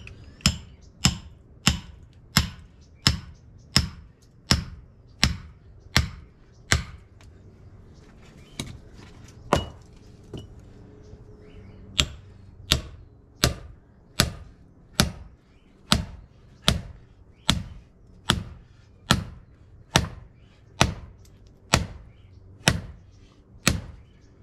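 Hammer blows driving splitting wedges into a hard eucalyptus log, about one sharp strike every 0.8 s, with a pause of a few seconds near the middle. The log's heartwood is hard and knotty, so it takes many blows to split.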